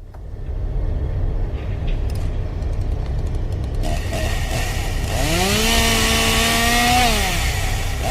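Chainsaw sound effect: the engine runs with a steady low rumble, then is revved about five seconds in, its pitch rising, holding and falling away near the end.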